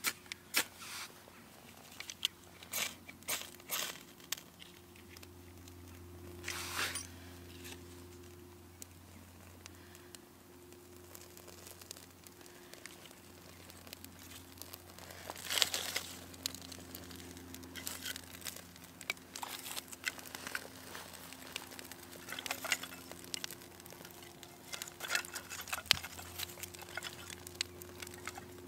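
Hands tearing and crumpling dry, papery tinder and handling split kindling, in scattered sharp scrapes and snaps. In the second half, small quick crackles as the kindling catches and burns.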